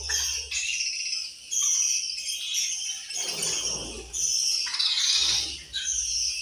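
A group of budgerigars chirping and chattering in quick high-pitched bursts, with a short rustling sound a little past the middle.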